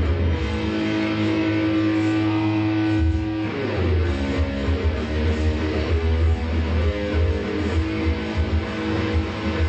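Electric guitar playing a heavy riff: one long held note for the first three seconds or so, then a run of shorter, quicker notes over a pulsing low end.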